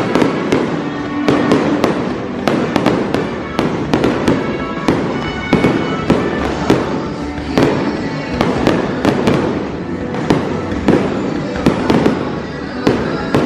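Fireworks display: aerial shells bursting in quick, overlapping bangs and crackles, several a second.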